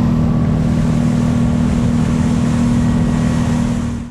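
Motorboat engine running steadily under way: a constant drone with a rushing hiss over it, cutting off abruptly at the end.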